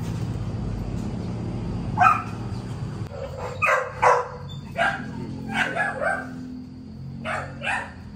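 Large bully-type dog barking in short, sharp barks, about eight of them from about two seconds in, several in quick pairs.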